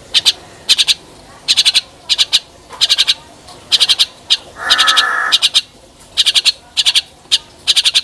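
Javan mynas calling: short bursts of rapid, high clicking chatter, about one a second, and a longer, harsher call about five seconds in.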